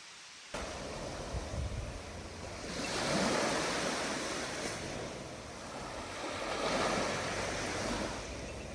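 Sea waves washing ashore, surging twice. Some wind on the microphone.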